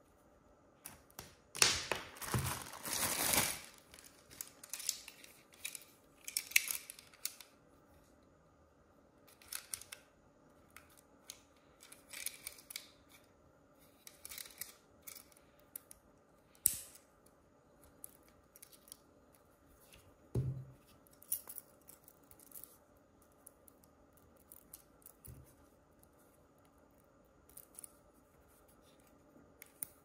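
Packaging being opened and handled: a long rasp of the package being cut or torn open about two seconds in, then scattered clicks and rustles of cardboard and plastic being handled.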